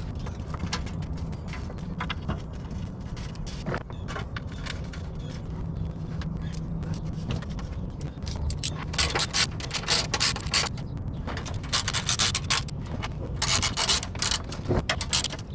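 Plastic underbody shield being worked back into place under the truck: a few scattered clicks, then from about nine seconds in, repeated bursts of plastic rubbing and scraping against the underside and its fasteners. A low steady hum sits underneath during the first half.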